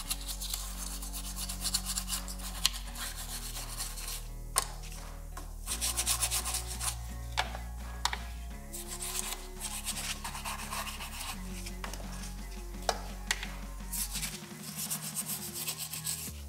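Toothbrush scrubbing the plastic case of a BMW F10 key fob, the bristles rubbing in quick, irregular strokes.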